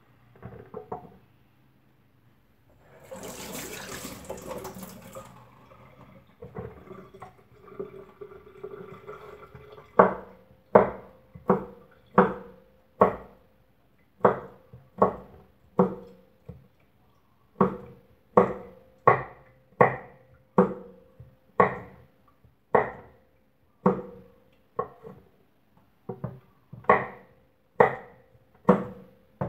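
A kitchen knife chopping on a wooden cutting board, evenly spaced strokes a little more than once a second, starting about ten seconds in. Before that there are a few light knocks and a short rush of noise, like a brief splash of water in the sink.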